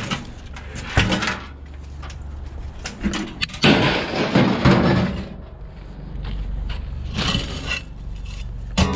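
Scrap being handled and dropped: a sharp knock about a second in, then a loud stretch of crashing and clattering for a second or so, with smaller knocks either side.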